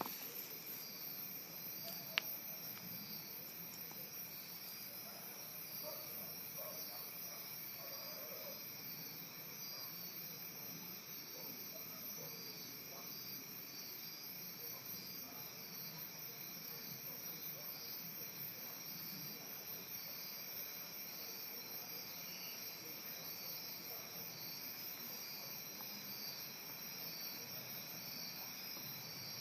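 Chorus of night insects, steady trilling at several pitches at once, with one sharp click about two seconds in.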